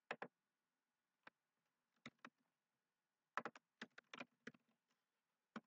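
Computer keyboard keystrokes, faint and irregular, as a name is typed: a few scattered taps, then a quick run of about ten keystrokes about three and a half seconds in.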